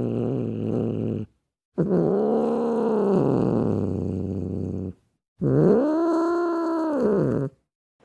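Cattle mooing: three long, deep moos, each rising and then falling in pitch. The first runs on from before and ends about a second in, and the others follow after short breaks.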